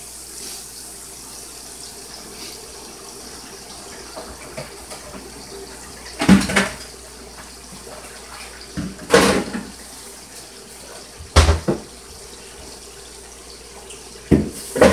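Chuck roast searing in hot oil in a skillet, a steady sizzle throughout. Four sudden louder noises are spread through it.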